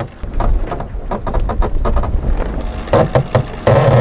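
Sailing catamaran's cockpit winch clicking as a line is worked around it, with a louder burst that has a low hum near the end, over wind and water noise.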